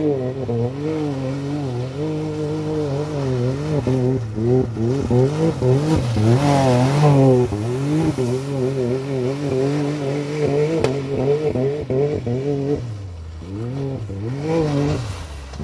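Can-Am Maverick X3 side-by-side's turbocharged three-cylinder engine revving up and down again and again while it drifts on loose, muddy gravel. About six seconds in there is a burst of hiss from the tyres throwing dirt. Near the end the revs drop for a moment, then rise again.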